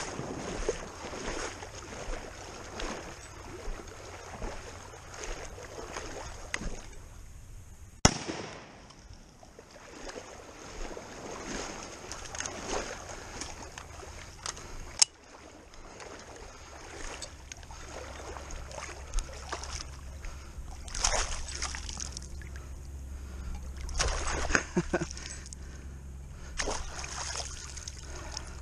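Water sloshing and splashing around a small boat moving along the shore, with two sharp, loud bangs about eight and fifteen seconds in: shotgun shots at a diving duck. A low steady motor hum comes in after the second shot.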